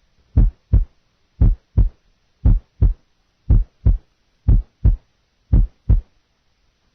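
Heart sounds heard through a stethoscope at the left lateral sternal border: six regular lub-dub beats, about one a second, with the first heart sound (S1) split, as a normal finding at this site.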